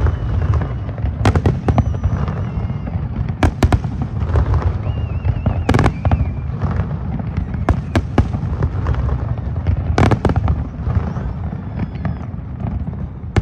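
Fireworks display: a continuous deep rumble of booming shells, cut by sharp cracks every second or two.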